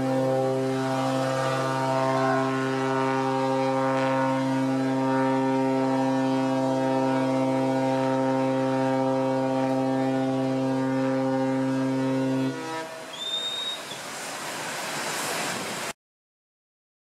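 Ship's horn from a ferry being run ashore for scrapping, sounding one long, steady blast that stops about twelve and a half seconds in. A rushing noise with a brief high whistle follows, and the sound cuts out near the end.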